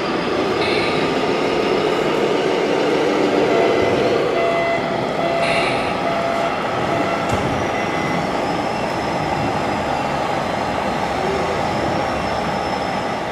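Steady mechanical running noise, like a vehicle, with a few faint whining tones over it.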